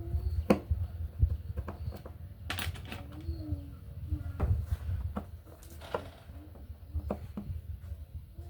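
Irregular sharp clicks and knocks over a steady low hum, with a short, low, wavering call like a dove's coo about three seconds in.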